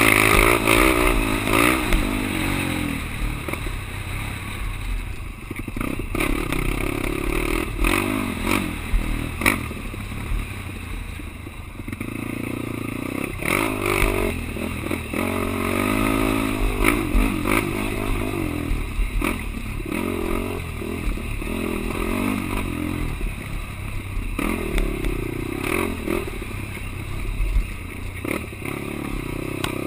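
Quad (ATV) engine revving up and down over and over under race riding, with frequent knocks and clattering.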